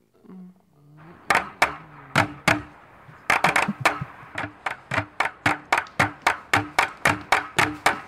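Running footsteps on a hard, polished floor: a few uneven steps about a second in, then a steady run of about three sharp steps a second.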